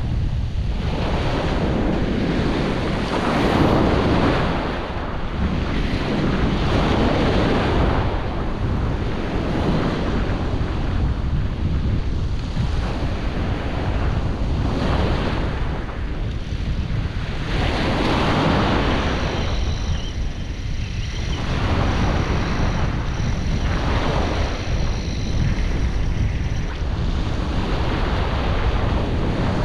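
Surf breaking and washing up around the microphone, swelling and ebbing every few seconds, with strong onshore wind buffeting the microphone in a constant low rumble.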